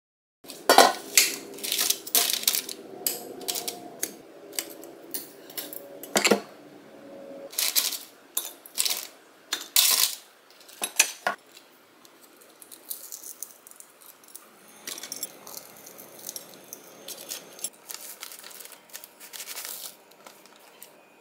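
Kitchen prep sounds: a run of sharp clinks and taps of a wooden spoon and chopsticks against ceramic bowls and plates, loudest in the first half. Softer clicks and rustling follow.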